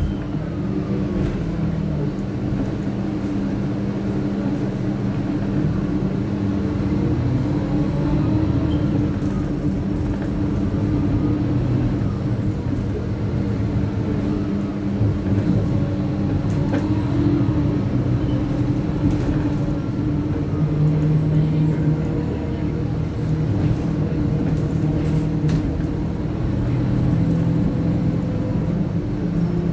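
Stagecoach bus 27215's engine and drivetrain running steadily, heard from inside the passenger saloon: a constant low hum with rumble, and a few short clicks and rattles.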